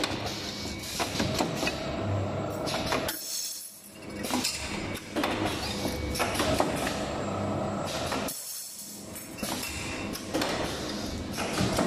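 Automatic wire ring forming and butt-welding machine running through its cycle: continuous mechanical clatter with sharp clacks, dropping into a short lull about every five seconds as each ring is made.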